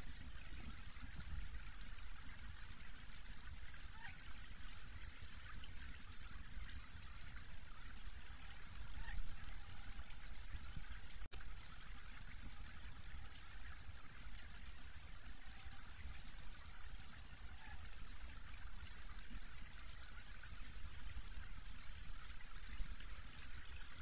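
High, thin calls of a small songbird: short rapid trills repeated every two to three seconds. Beneath them runs a steady rushing noise like flowing water.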